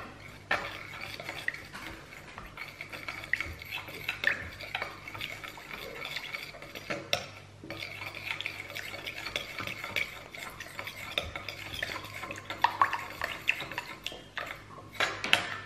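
Metal spoon stirring a thin, dark liquid sauce in a glass mixing bowl: a continuous run of quick, light clinks and scrapes of metal against the glass as the ingredients are combined.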